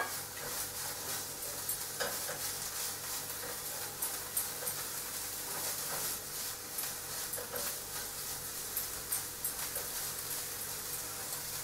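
Minced beef and vegetables sizzling steadily in a fry pan on the stove, crackling, with a utensil stirring through the mix and knocking lightly against the pan now and then.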